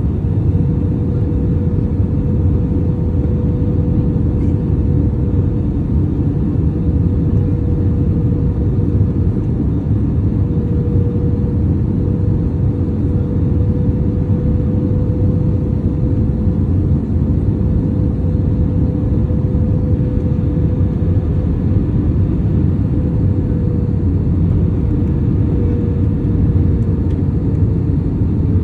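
Jet airliner cabin noise on descent, heard inside the cabin from a seat over the wing: a steady low rumble of engines and airflow with a steady hum that dips slightly in pitch near the end.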